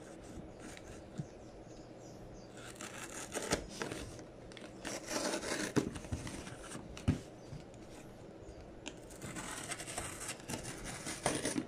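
Scissors slitting the packing tape along the seams of a cardboard box, in three spells of scraping and tearing with a few sharp clicks.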